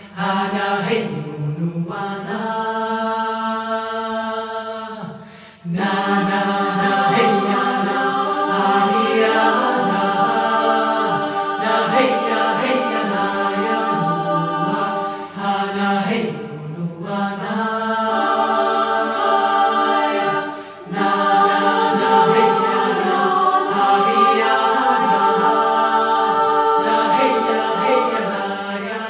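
Choir singing long held notes as film-score music, with brief dips about five and seventeen seconds in.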